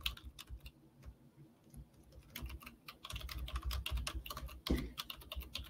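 Typing on a computer keyboard: a few scattered keystrokes, a pause of about a second, then a fast run of keystrokes from a little past two seconds in.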